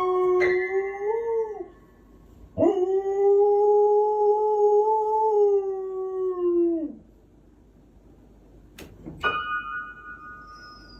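A dog howling in long, steady-pitched howls: one trails off and falls away about two seconds in, then a second howl of about four seconds drops in pitch at its end. A couple of sharp clicks follow, then a fainter, higher drawn-out tone near the end.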